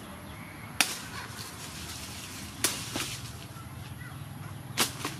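Cleaver chopping into a sugar cane stalk: three sharp chops about two seconds apart, the last two each followed by a lighter knock.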